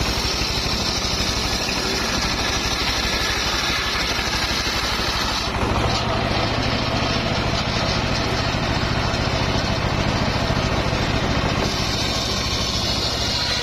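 Engine-driven homemade circular sawmill running steadily while sawing mahogany. About five and a half seconds in, the sound gets deeper and duller, then changes back near the end.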